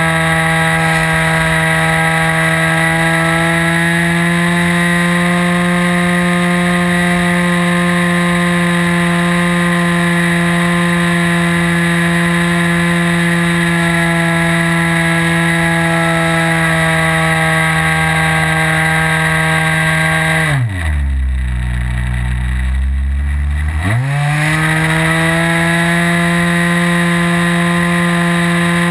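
OS 55AX two-stroke glow engine of a World Models Ultimate 40S model plane, heard from the plane's onboard camera, running at a high steady pitch. About twenty seconds in the throttle is cut and the engine drops to a low idle for about three seconds, then it revs straight back up to full power.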